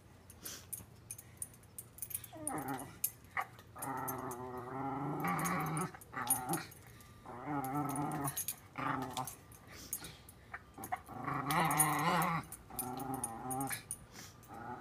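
Welsh Terrier growling with a metal water bowl held in its mouth, in three long bouts separated by short pauses, with scattered light clicks between them.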